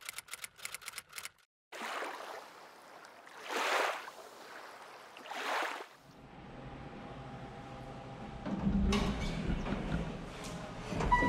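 Logo-animation sound effects: a quick run of clicks lasting about a second, then two rising-and-falling whooshes. Then hotel elevator and hallway noise with low rumbling and a few knocks, and an elevator chime beginning near the end.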